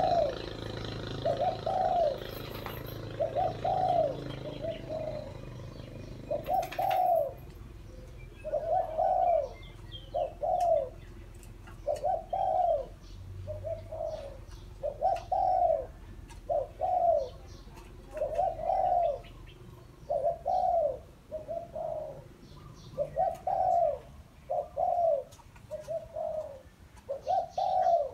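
Caged decoy dove cooing over and over: short, rounded coos in quick twos and threes with brief gaps, from a high-voiced bird of the kind keepers call "small-voiced". Under the first several seconds there is a low rumble.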